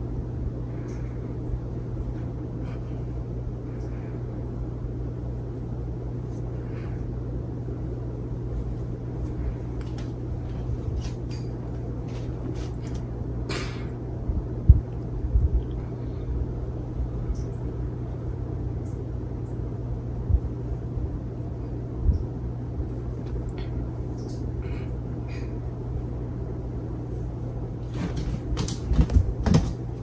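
Hunter 2nd Century ceiling fan running steadily with a low motor hum. Faint scattered clicks and a few louder knocks come about halfway through and again near the end.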